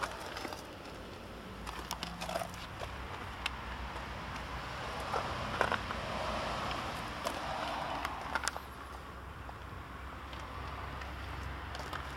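Handling noise from a handheld camera moved about inside a parked car: scattered small clicks and rustles over a steady low rumble.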